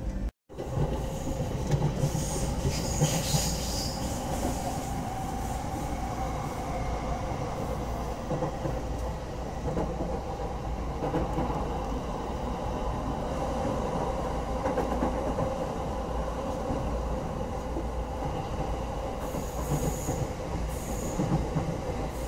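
Running noise inside a JR Ueno-Tokyo Line commuter train: wheels rumbling on the rails under a steady whine. The sound cuts out for a moment about half a second in.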